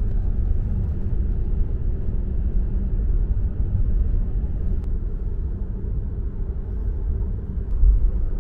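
A steady low rumble with no speech, with a single faint tick about five seconds in.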